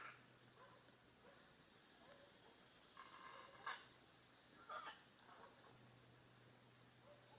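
Faint, scattered bird calls: short chirps and brief falling notes, the loudest about two and a half seconds in, over a steady high-pitched tone.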